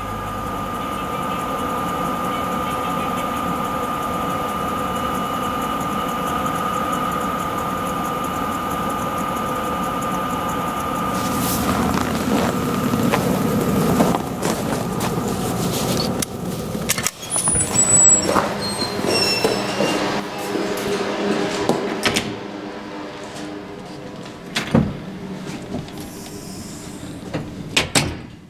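A steady mechanical drone with a high whine, which cuts out about eleven seconds in. Then come irregular knocks and clatter with a few short high squeaks as a door is opened and someone walks inside, and a couple of sharp knocks near the end.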